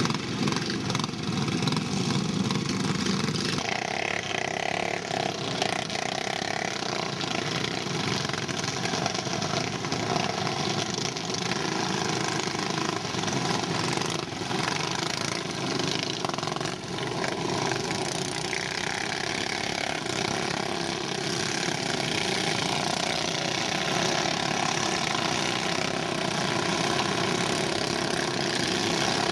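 Go-kart engine running steadily, with no break.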